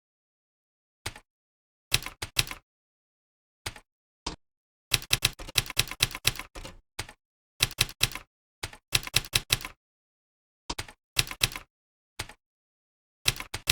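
Computer keyboard typing: quick bursts of keystrokes separated by pauses, with a longer, faster run in the middle.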